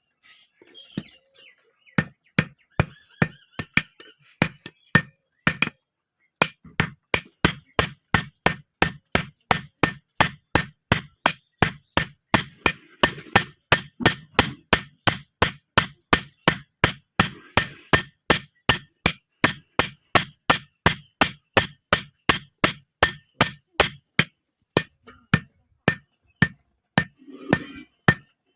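Blacksmith's hand hammer striking a metal rod on an anvil in a steady rhythm of about three ringing blows a second, with a short pause about six seconds in.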